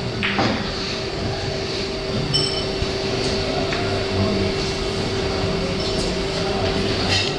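Boccette ball rolled by hand across a billiard table's cloth, a low steady rumble, with a light click near the end as it comes up to another ball.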